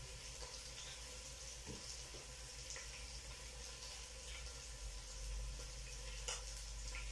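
Kitchen faucet running water into a metal sink while tomatoes are washed, a steady soft hiss with a few light knocks.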